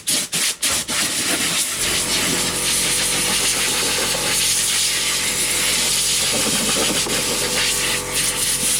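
Quick back-and-forth rubbing strokes, then a power tool starts about two seconds in and runs with a steady hiss.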